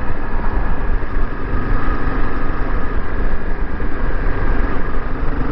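Motorcycle being ridden, its engine running under a steady loud rush of noise that is heaviest in the low end.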